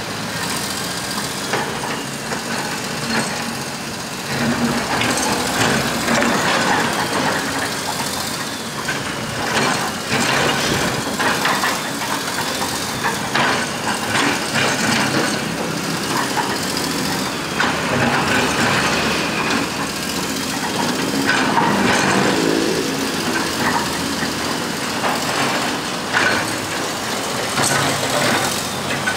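Komatsu PC200 hydraulic excavator's diesel engine running steadily while its bucket digs and scrapes through packed soil, rock and old paving, with repeated knocks and scrapes throughout.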